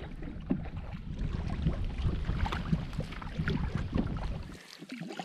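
Canoe being paddled on a lake: irregular paddle strokes and water splashes over wind rumbling on the microphone. The wind rumble drops away suddenly near the end.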